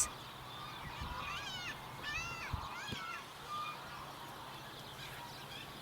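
Three short animal calls, each rising then falling in pitch, about a second apart, with a few soft low thumps.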